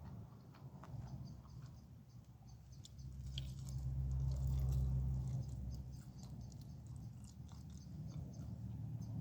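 Close-miked chewing with small wet mouth clicks, the chewing growing heavier and louder for a couple of seconds in the middle.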